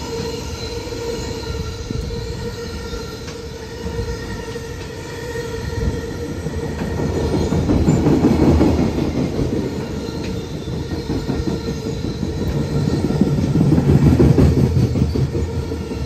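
Container wagons of a departing freight train rolling past, the wheels rumbling on the rails with a steady whine throughout. The rumble swells twice, about halfway through and again near the end.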